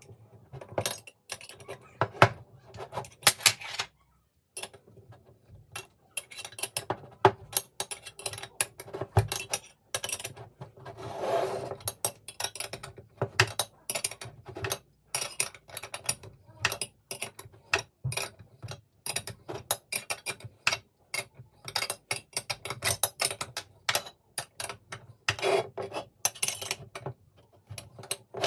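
Irregular metallic clicks, knocks and scrapes of a socket and hex key being turned and repositioned against a cast-aluminium throttle body, as a makeshift puller draws out a throttle shaft bearing. There is a short pause about four seconds in.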